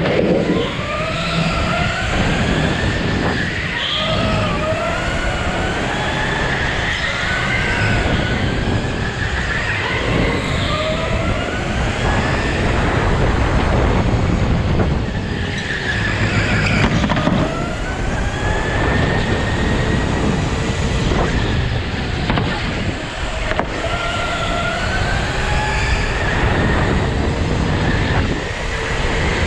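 Go-kart heard from on board, its motor climbing in pitch as it accelerates and dropping as it slows for corners, again and again, over a steady rush of tyre and track noise.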